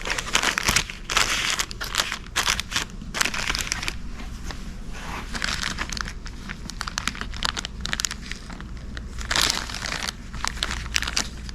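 Packaging being torn open and crinkled as a new outboard ignition trigger is unwrapped: irregular rustling and crackling.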